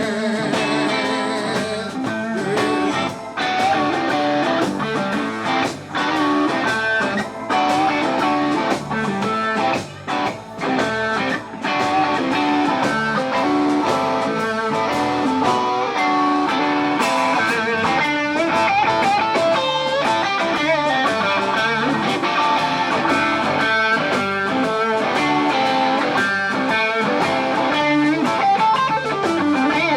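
Blues-rock band playing an instrumental passage, electric guitar to the fore, with several short breaks in the first twelve seconds or so.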